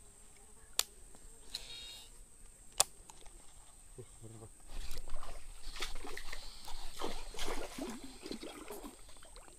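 Baitcasting reel being wound in as a lure is retrieved, with two sharp clicks about two seconds apart. From about halfway there is a louder stretch of water splashing and sloshing at the surface.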